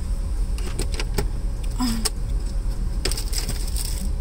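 Car engine idling, a steady low rumble heard inside the cabin, with scattered clicks and rustles of someone rummaging through the car.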